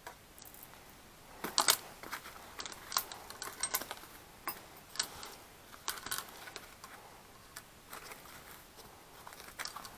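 Steel chainsaw chain rattling and clinking as it is handled and fitted around the Sterwins chainsaw's guide bar: a run of light metallic clicks and jingles, the loudest about one and a half seconds in.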